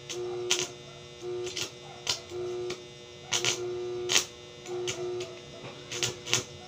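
Electric arc welder striking short welds on a steel window grille: about six bursts of under a second each, a steady hum from the welding machine under load with sharp crackles and snaps from the arc, separated by short pauses.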